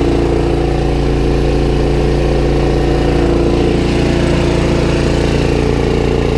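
Onan 4000 RV generator engine running at a steady speed.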